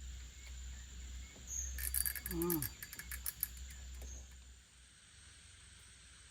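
Insects chirring steadily in the background, with a quick run of sharp clicks and a short low voice-like sound about two to three seconds in. A low hum drops away after about four and a half seconds.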